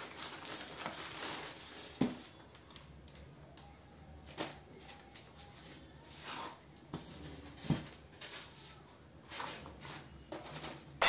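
Plastic courier mailer crinkling and rustling as it is opened, then a taped cardboard wrapper being handled and pulled apart. A few sharp knocks, about two seconds in, near four and a half seconds and near eight seconds.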